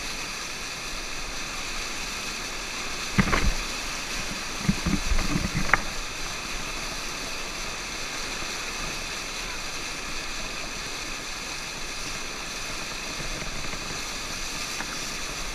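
Water rushing steadily through an artificial standing-wave surf ride as bodyboarders ride it, with a few short thumps between about three and six seconds in.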